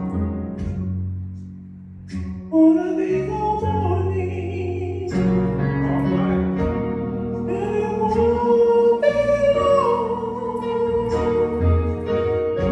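Men's gospel choir singing to instrumental accompaniment. A short instrumental passage with low sustained notes gives way to the voices coming in about two and a half seconds in, holding and sliding between long sung notes.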